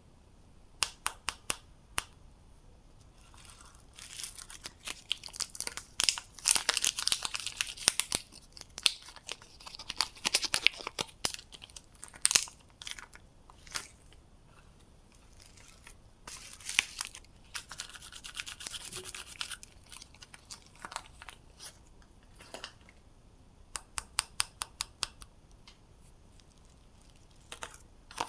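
Soap wrappers being torn open and crinkled: bursts of rustling and tearing, with scattered sharp clicks and taps in between.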